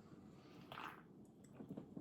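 Near silence, with a faint short hiss about three-quarters of a second in and a few soft clicks near the end.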